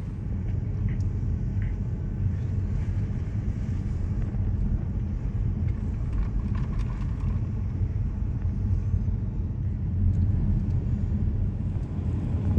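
Steady rumble of a moving vehicle heard from inside, engine and tyres on a rough, broken road, with a few faint knocks from the bumps.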